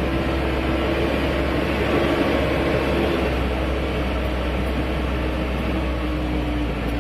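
Hino Dutro dump truck's diesel engine running steadily with road noise, heard from inside the cab while driving on a dirt road; a constant low drone with no change in pace.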